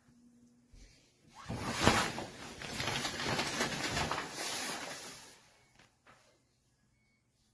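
Water spraying from a handheld pet-shower sprayer hose, a hissing rush that starts about a second and a half in and fades out after about four seconds.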